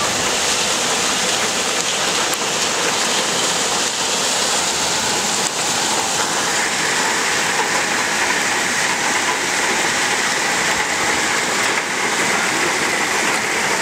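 Heavy rain mixed with hail pouring down onto asphalt, grass and a concrete wall, a steady dense hiss.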